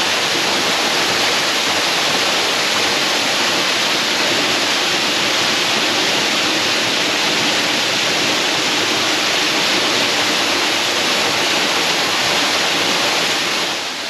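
Tall waterfall plunging into a pool in a narrow rock gorge: a steady, even rush of falling water.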